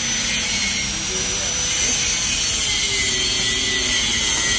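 A power tool running steadily, a constant hiss with a thin high whine over it.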